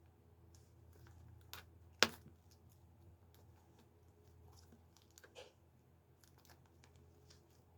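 Tight, air-sealed plastic packaging being handled and picked open: scattered crinkles and small clicks, with one sharp click about two seconds in.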